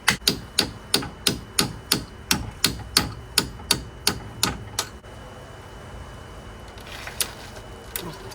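Hammer blows on metal, a steady run of about three a second for some five seconds, then two lighter blows near the end. They are pounding on the front wheel hub bearing assembly of a 2010 Chevy Impala, which is stuck fast in the steering knuckle.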